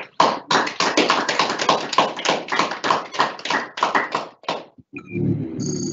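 Hand clapping in a small room, about four or five sharp claps a second, stopping near the end. About a second before the end, a steady low hum and a high held tone begin.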